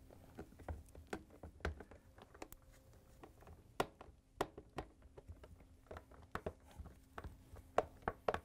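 Faint, irregular clicks and taps of a 3/16-inch nut driver tightening the screws on a dishwasher dispenser's sheet-metal mounting bracket, over a faint steady hum.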